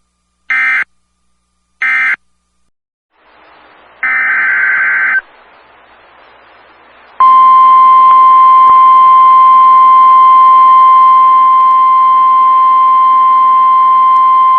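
EAS/SAME digital data tones: two short screeching end-of-message bursts, a hiss, then one longer header burst about four seconds in. About seven seconds in, the NOAA Weather Radio 1050 Hz warning alarm tone starts: a single loud, steady tone that signals a new warning is about to be read.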